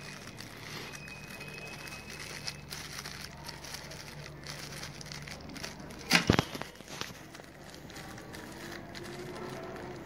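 Plastic bags of metal BNC connectors crinkling and the connectors clinking as they are handled and rummaged through in a cardboard box, with a louder clatter about six seconds in.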